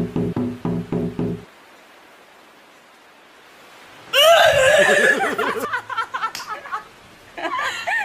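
A quick run of knocks with a low ringing tone for about the first second and a half. About four seconds in comes a woman's loud shriek that breaks into laughter, with another short burst of laughter near the end.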